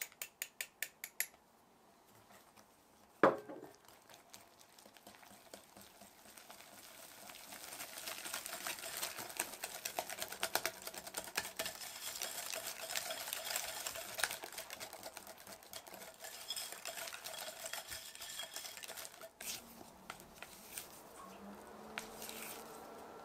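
A utensil mixing ingredients in a bowl: a quick run of light clicks at the start, a single sharp knock about three seconds in, then a long stretch of fast scraping and clinking against the bowl that thins out near the end.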